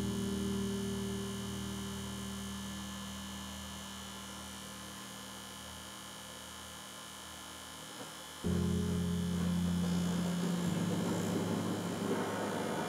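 Background music: low sustained chords that fade slowly and change abruptly to a new chord about eight and a half seconds in.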